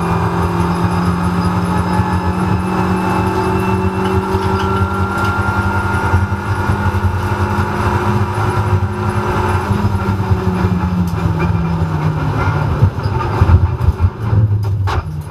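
Renault Clio Cup race car's engine heard from inside the cockpit, held at steady high revs along a straight, then dropping about ten seconds in as the car slows for a corner. Several loud knocks and bangs come in the last two or three seconds.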